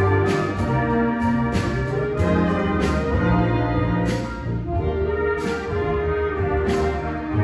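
A live orchestra playing, with brass to the fore over strings, and sharp percussion strokes marking a steady beat.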